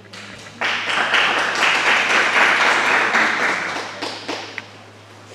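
A roomful of people applauding. The clapping starts abruptly about half a second in and dies away after about four seconds.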